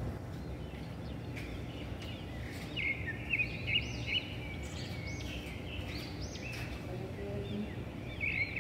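Bird chirping in quick runs of short high notes from about a second and a half in, over a steady low hum.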